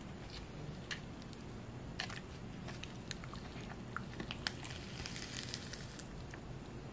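Sucking and slurping frozen ice slush from a plastic squeeze pouch held to the mouth, with irregular small clicks, squishes and crinkles of the pouch. The sharpest click comes about four and a half seconds in.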